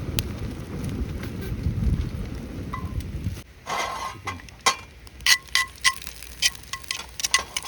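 Thick cut of meat sizzling on a grill over a campfire, with a burst of hissing about three and a half seconds in and a run of sharp metallic clicks after it, typical of tongs on a grill grate. Before that there is a low rumble.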